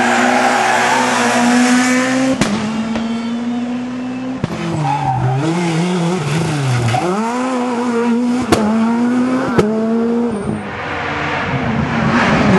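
S2000 rally cars, Škoda Fabia S2000 among them, with their 2.0-litre four-cylinder engines held at high revs through corners. About halfway through, the engine note falls and rises again as a car lifts off and accelerates. The sound changes abruptly several times, with a few sharp cracks.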